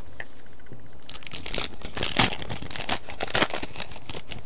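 Foil wrapper of a 2015 Prestige football card pack being torn open: crinkling and ripping for about three seconds, starting about a second in, with a few louder rips in the middle.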